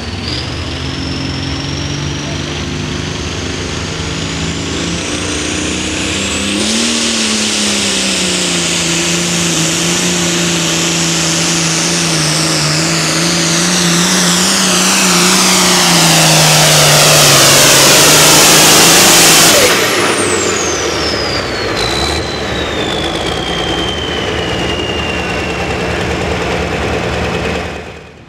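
International Harvester 1066 pulling tractor's turbocharged diesel engine running flat out under load on a pull. The turbo whine climbs over the first few seconds and the engine grows louder as the run goes on. About twenty seconds in the throttle is cut, and the turbo whine falls away for several seconds as it spools down.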